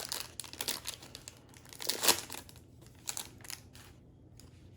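Foil wrapper of a baseball card pack being torn open and crinkled, in irregular crackles, loudest about two seconds in and dying away near the end.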